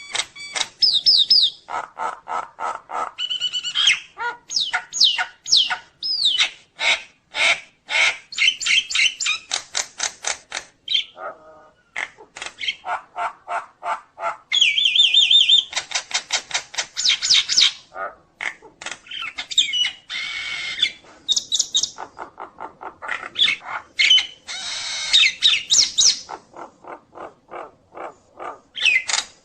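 Nias hill myna singing a loud, rapid, varied song: quick runs of sharp clicking and chattering notes broken by squawks and sliding whistles, with longer whistled phrases about halfway through and again near the end.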